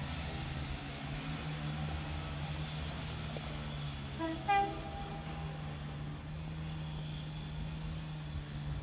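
A train's steady low hum runs throughout. About four and a half seconds in, a train sounds one brief horn toot, a warning to track workers on the line.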